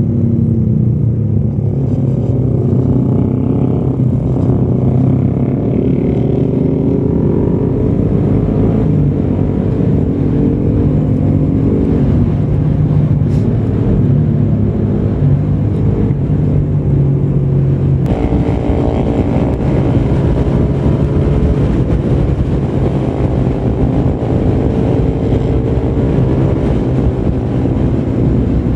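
Suzuki Raider 150 Fi single-cylinder motorcycle engine under way, its pitch rising and falling as it accelerates and shifts through the gears, with wind noise on the microphone. The sound changes abruptly about two-thirds of the way through.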